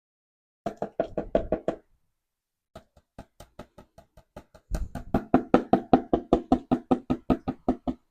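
Rapid, even knocking taps, about six a second: a short quick run about a second in, then after a pause a longer run that grows louder about five seconds in.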